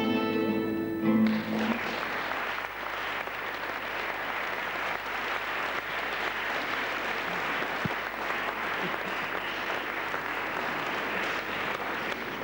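Live acoustic guitar music ends on a held final note about a second in, then the audience applauds steadily.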